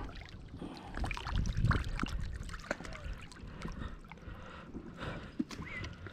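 Water splashing and lapping around a large waterlogged log as it is dragged through the water by hand, with the most splashing between about one and two seconds in.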